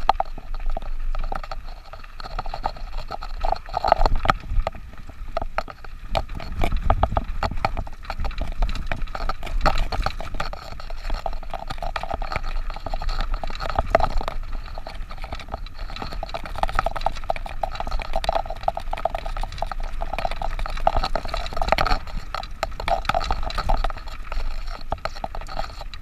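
Mountain bike ridden over rough trail: dense, irregular rattling and knocking with a steady low rumble of wind on the microphone.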